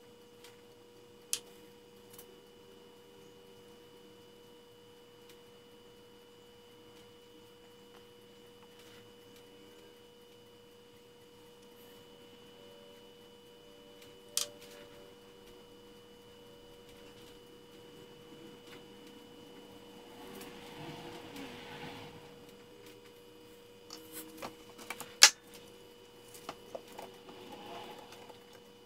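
Faint steady electrical hum throughout. Over it come a few sharp clicks, the loudest about 14 and 25 seconds in, and soft handling and rustling as a small plastic cup and the lure are handled.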